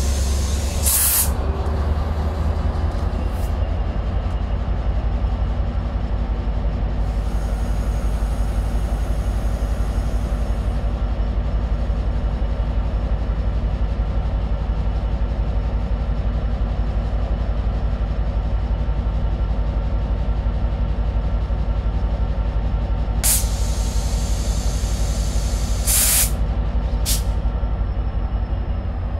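Metra diesel passenger locomotive idling at a standstill: a steady low engine drone. Short sharp hisses of air come about a second in and three times near the end, with a softer hiss of a few seconds a quarter of the way through.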